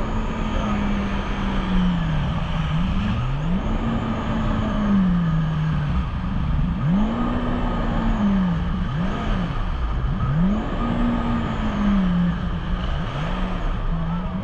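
A jet ski engine whose pitch climbs and drops again and again, every two to three seconds, over a steady rush of noise. The riders say it keeps surging, "taking and giving", rather than holding steady.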